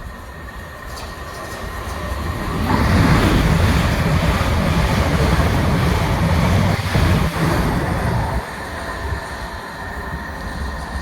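A train running on the line past the station platform, its rumble building over the first few seconds, staying loud for about five seconds, then dropping off sharply to a lower level.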